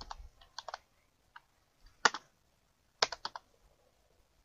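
Computer keyboard keys typed in short irregular runs: a few keystrokes at the start, a single loud one about two seconds in, and a quick cluster of keystrokes about three seconds in.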